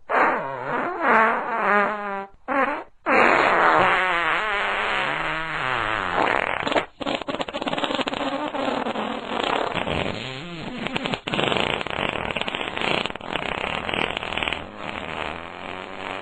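A string of farts: two or three short wavering, pitched ones in the first few seconds, then a longer one that wobbles and drops in pitch, then a long rattling, sputtering one that runs on for about nine seconds.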